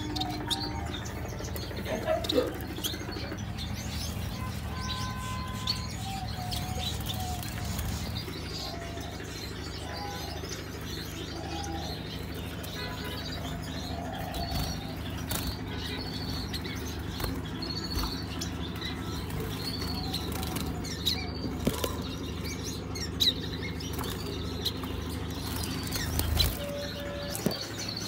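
Small cage birds fluttering and flapping their wings around an aviary, with scattered short chirps, over a steady low hum.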